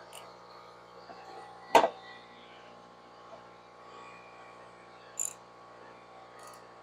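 Tools and parts being handled during reassembly of the mower's engine: one loud knock about two seconds in and a sharper click about five seconds in, with a few faint clicks between.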